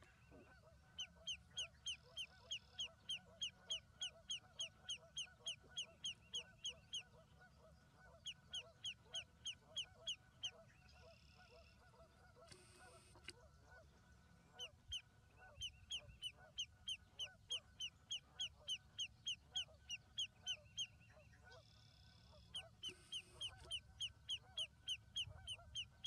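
Lesser yellowlegs calling: long runs of sharp, down-slurred "tew" notes, about four or five a second, repeated in several bouts broken by short pauses.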